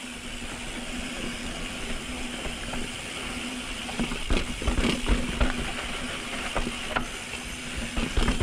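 Mountain bike rolling down a rocky trail: steady tyre and wind noise with a faint steady hum. About halfway through comes a run of sharp knocks and rattles as the bike goes over rocks.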